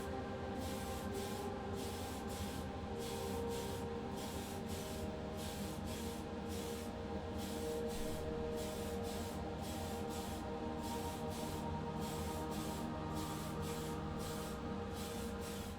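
Spray paint going onto a diecast car body for the colour coat: a steady hiss broken by short gaps about twice a second, over a steady hum.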